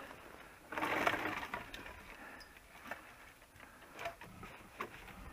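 A folding table being set up: a brief scraping rustle about a second in, then scattered clicks and knocks.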